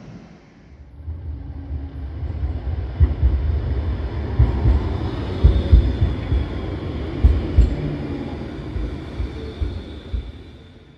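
Pesa Swing low-floor tram passing close by, running over the rails with a low rumble and a series of knocks from the wheels. A thin high whine is heard in the second half. The sound builds up, is loudest in the middle, and fades near the end.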